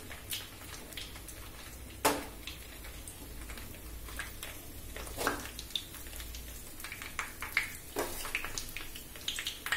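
Stuffed pointed gourds (parwal) frying gently in mustard oil in a kadai on a low flame: a quiet, steady sizzle with a few sharp pops and clicks scattered through it.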